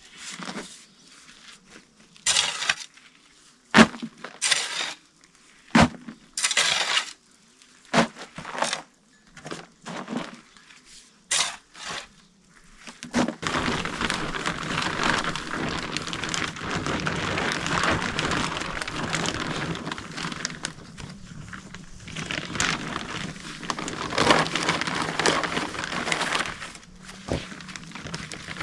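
Scattered sharp knocks and cracks with short scraping bursts, then about fourteen seconds of continuous crunching, scraping noise that eases off near the end.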